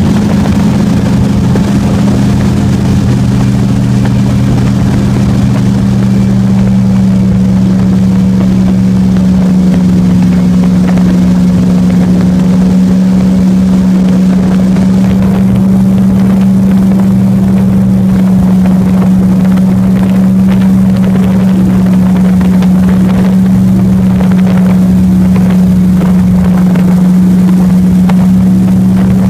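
Airboat's engine and air propeller running at speed: a loud, steady drone with a strong low hum.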